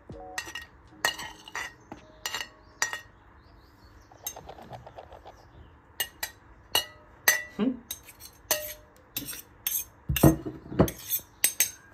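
Cutlery and dishes clinking: irregular sharp taps and knocks of metal on plates or glass, some with a brief ring, coming more thickly in the second half.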